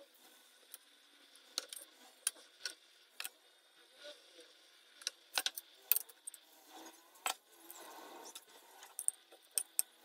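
Sharp, irregular clinks and taps of a metal fork and spoon against a ceramic plate while a salad is assembled and tossed, with a soft rustle of lettuce leaves about eight seconds in.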